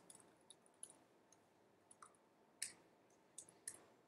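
Faint, irregular clicks of laptop keys being typed, about ten in all with the loudest a little past halfway.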